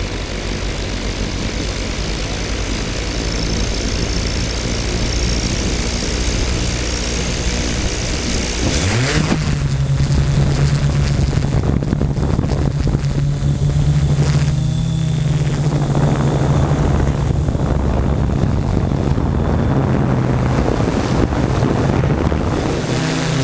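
Yuneec Typhoon G quadcopter's electric motors and propellers buzzing, heard from the camera it carries, with steady rushing noise. About nine seconds in the pitch rises and settles into a higher, steady hum as the drone climbs.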